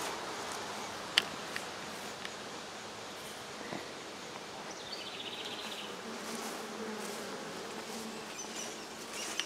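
Saskatraz honey bees buzzing in an open wooden hive box, a steady hum that echoes in the box. There is one sharp click about a second in.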